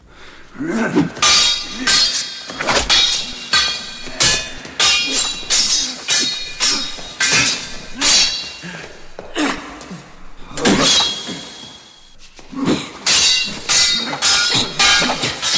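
Sword-fight sound effect: metal blades clashing in a rapid, irregular series of clangs, each ringing briefly, with a short lull about twelve seconds in.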